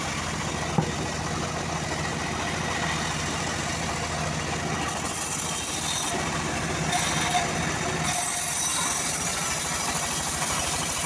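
Homemade bandsaw mill running with a steady mechanical hum as a teak log is pushed along its table. A sharp knock comes about a second in and a smaller one about halfway through.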